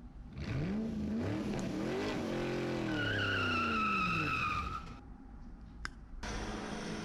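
A vehicle engine revving up and back down, with a high squeal over it in the middle, cutting off abruptly about five seconds in; a steadier, quieter running sound follows after a short click.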